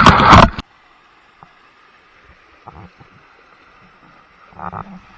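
Loud rush of splashing water from a rider going down an enclosed tube waterslide, cutting off abruptly about half a second in. A faint steady hiss follows, with a few soft knocks near the end.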